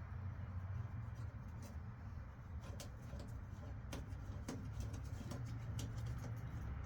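Scattered light clicks and taps of parts and tools being handled, over a steady low hum.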